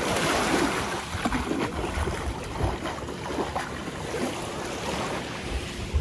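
Sea water splashing as a person wades in through the shallows and starts to swim, with small waves lapping and wind buffeting the microphone. The splashing is fullest in the first second or so.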